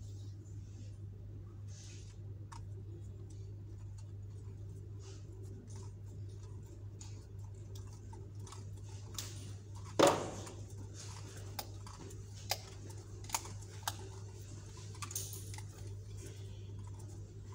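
Small metallic clicks and ticks of a laser lens holder being handled and its ring threaded in by gloved hands, over a steady low hum. One sharp click about ten seconds in is the loudest, followed by a few lighter ticks.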